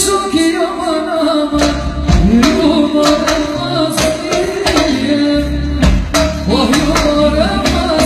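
Live band music: a woman singing a wavering, ornamented melody into a microphone over a drum kit, with regular sharp drum hits and a heavy low bass line.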